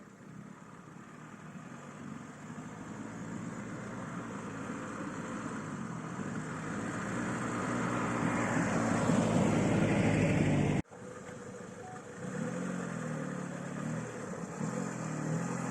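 Lada Niva (VAZ-21218 Fora) engine running off-road, growing steadily louder for about ten seconds. It breaks off abruptly about eleven seconds in, then carries on at a steady note.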